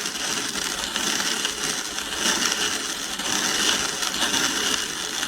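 Hand-cranked conical burr grinder grinding whole millet into flour at a very fine setting: a continuous gritty grinding that swells and eases slightly with the turns of the crank.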